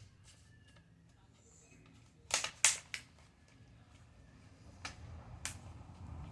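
Plastic laptop screen bezel being pressed onto the display lid: a few sharp clicks and taps as its clips snap into place, two close together about two seconds in, then single ones further on, over faint handling rumble.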